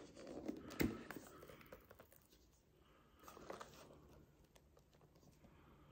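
Faint rustling and handling of a gift box and its packaging, with one sharp knock a little under a second in and a few soft taps around three and a half seconds.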